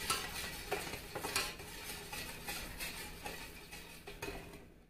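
A metal spoon stirring sugar and salt into water in a stainless steel pot, with repeated clinks and scrapes against the pot's sides that fade out near the end.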